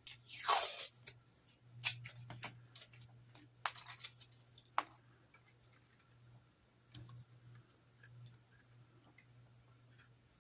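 Small plastic model parts being handled on a workbench: a brief scraping rustle at the start, then scattered light clicks and taps that grow sparser partway through, over a faint low hum.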